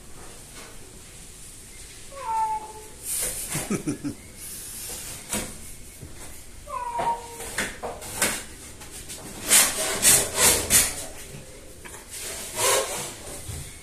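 A cat meowing twice, a few seconds apart, amid scraping and knocking sounds that are loudest in a quick cluster near the end.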